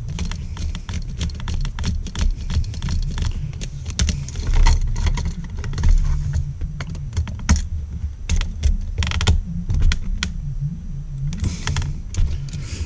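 Screwdriver turning and tightening the terminal screws on a duplex electrical outlet held in the hand: irregular small clicks and scrapes of metal and plastic over a low rumble.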